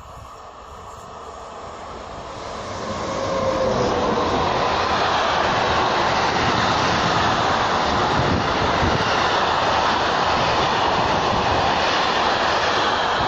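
Freight train of tank wagons, hauled by an SNCF BB 26000-series electric locomotive, passing close by. The sound swells over the first three seconds or so as it arrives, then holds as a loud, steady rush of wheels on rails while the wagons roll past.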